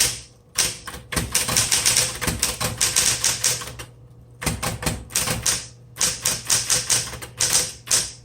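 1960s Smith Corona Electra 120 electric typewriter typing: quick runs of sharp keystroke clicks broken by short pauses, over the steady hum of its running motor.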